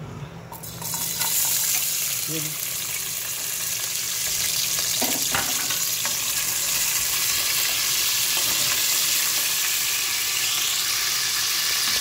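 Sliced garlic dropped into hot oil in an aluminium pressure-cooker pot and sizzling, the hiss starting about a second in and holding steady, with a few knocks of a wooden spoon stirring it. The oil had been left to heat first, so the garlic sizzles as soon as it goes in.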